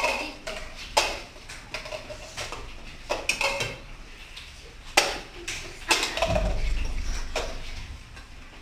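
Plastic cups being set down one after another on a game board on a table: a series of sharp taps about a second or so apart.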